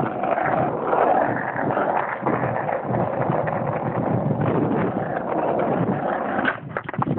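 Skateboard wheels rolling over rough asphalt: a steady gritty rumble, with a couple of sharp knocks near the end.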